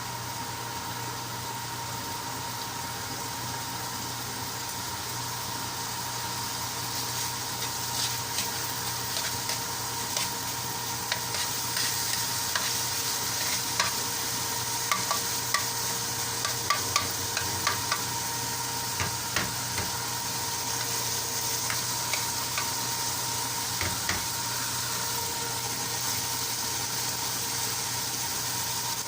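Food sizzling in a frying pan while a cooking utensil stirs it, clicking and scraping against the pan many times. The sizzle grows louder about a quarter of the way in, over a faint steady hum.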